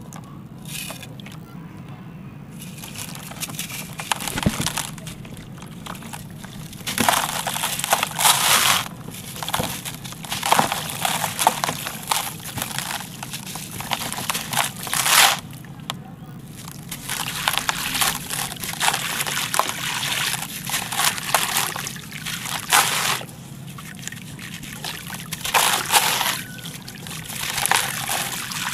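Dry, gritty concrete pot rubbed and crumbled by hand over a basin of water, in repeated bursts of grainy scraping a few seconds long, with grit falling and splashing into the water.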